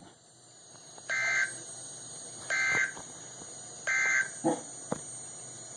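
NOAA Weather Radio's Emergency Alert System end-of-message data bursts: three short, harsh two-tone digital squawks about a second and a half apart, signalling the end of the alert. A brief lower-pitched sound and a click follow shortly after the last burst.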